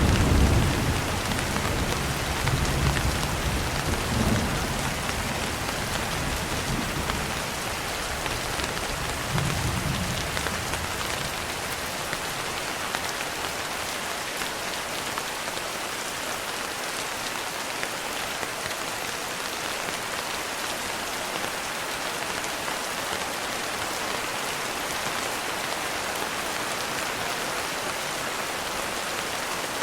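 Steady heavy rain. Low thunder rumbles through the first ten seconds or so and then dies away, leaving only the rain.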